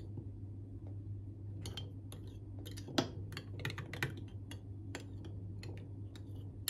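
Metal teaspoon clinking against the sides of a small ceramic mug while stirring yeast into warm water: quick, irregular light clicks starting about a second and a half in, the sharpest around three and four seconds in.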